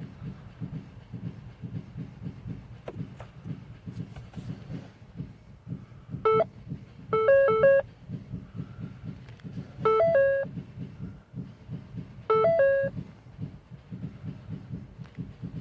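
Ford Focus ST engine running with a steady low pulsing, the car starting and running after its no-start fault was fixed. Short electronic chimes of a few stepped notes sound in four groups midway.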